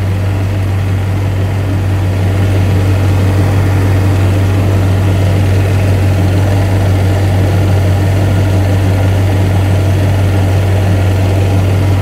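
Chevrolet engine idling steadily as a low hum, with the air conditioning running at maximum fan and coldest setting so that oil and refrigerant can be drawn in through the low-pressure side. It gets slightly louder after about two seconds.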